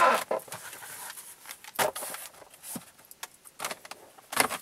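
Handling noise from a car's glove compartment: a run of small clicks, knocks and rustles as it is used and its lid pushed shut, with a few sharper clicks near the end.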